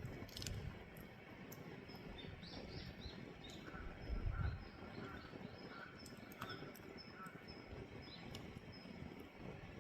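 Firewood burning in a traditional Korean agungi firebox, crackling with scattered sharp pops over a low rumble, with a dull low thud about four seconds in.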